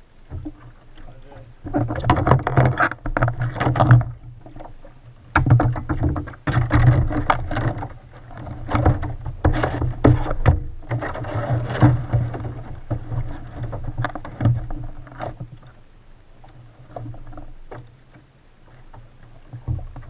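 Sea water sloshing and slapping against a kayak's hull, with irregular knocks. It comes in loud surges for the first half and dies down near the end.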